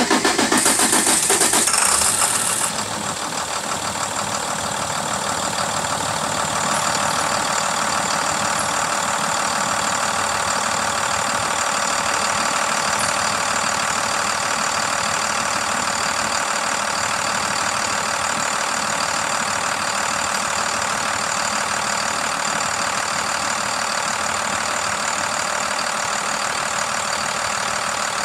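2008 International MaxxForce DT inline-six diesel engine, just started: it runs loud for about the first two and a half seconds, then settles into a steady idle.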